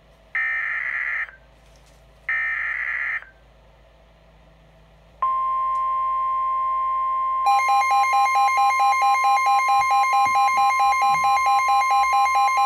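NOAA Weather Radio Specific Area Message Encoding (SAME) header: two screeching digital data bursts, each just under a second, announcing a new warning. About five seconds in, the steady 1050 Hz warning alert tone starts. About two seconds after that, a Midland WR-120 weather radio's own alarm starts beeping rapidly and loudly over it, triggered by the warning.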